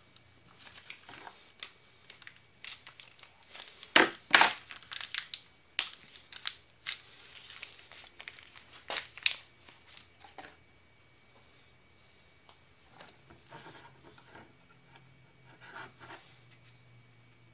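Plastic parts packaging crinkling and being torn open by hand, in quick crackles and rips with the loudest tearing about four seconds in. After about ten seconds the sound drops to faint, occasional handling.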